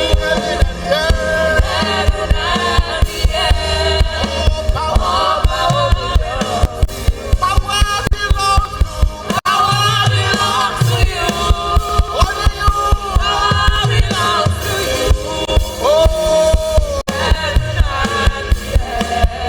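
Live gospel worship music: a band with a steady driving beat and voices singing, with a choir joining in.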